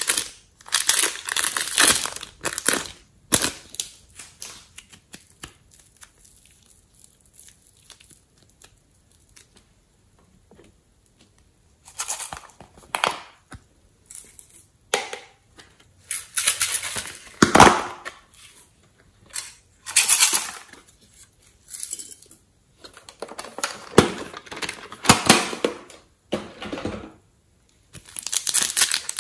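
Clear plastic wrapping crinkling and tearing as it is peeled off blocks of soft foam clay. The noise comes in irregular bursts, with a long quiet stretch early on.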